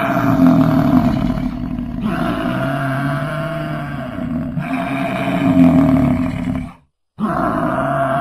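American bison bellowing: long, low, pitched calls that swell and ease one after another. The sound cuts out briefly about 7 seconds in, then the bellowing starts again.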